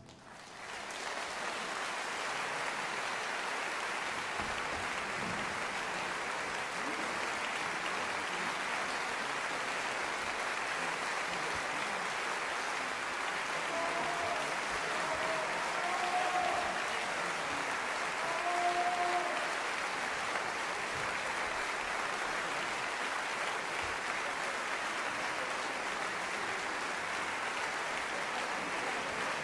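Concert hall audience applauding steadily, the applause building in the first second. A few brief cheers stand out about halfway through.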